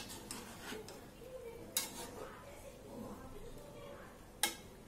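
Metal spatula scraping and knocking against a metal cooking pot while stirring sliced bottle gourd and chicken, with a few sharp clinks. The loudest comes just under two seconds in, and another near the end.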